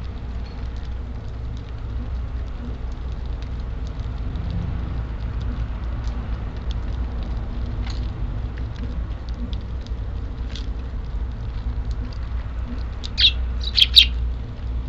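Wild Eurasian tree sparrows feeding, with scattered light pecking ticks and a few sharp, loud chirps near the end. Strong wind rumbles on the microphone throughout.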